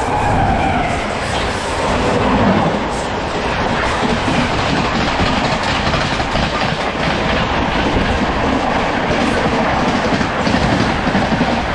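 Running noise of a moving passenger train heard at an open window: a steady loud rush with the wheels clattering over the rail joints, while another passenger train passes close alongside on the next track.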